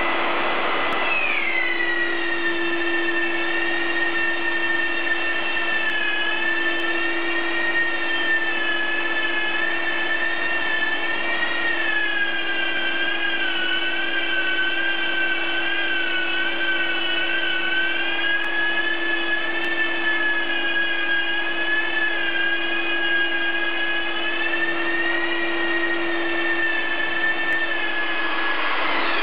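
Long-reach drywall sander running on gypsum plaster, with its dust extractor drawing through the hose: a steady high whine that wavers slightly in pitch and drops once about a second in, over a steady lower hum.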